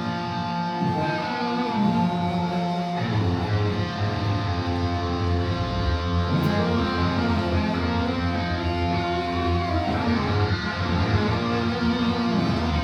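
Hard rock band playing live, led by electric guitars over bass, with no singing picked up. The low end thickens about three seconds in.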